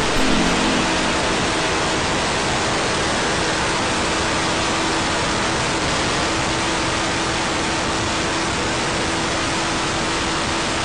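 Steady rush of wind noise on a sport motorcycle's onboard microphone at very high speed, with a faint steady engine note underneath.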